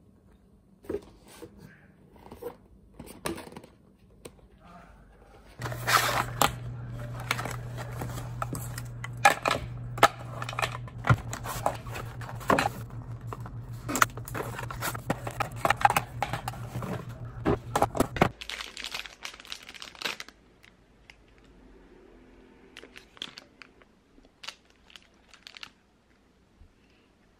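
Cardboard coffee-capsule boxes being opened and handled, with tearing and crinkling, and many clicks and clatters as plastic capsules are tipped into a clear bin. A steady low hum runs through the busiest stretch, starting and stopping abruptly. It is followed by faint scattered handling sounds.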